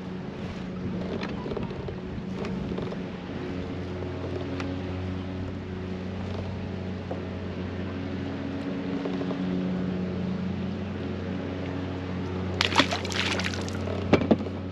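Motor of a fishing kayak running steadily underway, a low even hum over water rushing past the hull. Near the end a short splashy burst and two sharp knocks.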